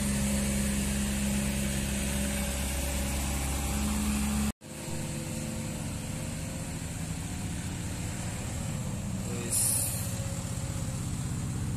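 Engines of a minibus and then a light cargo truck labouring up a steep hill, running steadily at low revs. The sound drops out for a moment about halfway. A short, sharp hiss comes near the end.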